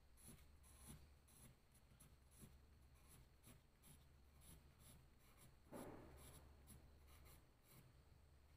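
Faint scratching of a pencil on paper in short strokes, about two a second, as leaflet lines are drawn. A louder rub on the paper comes a little before six seconds in.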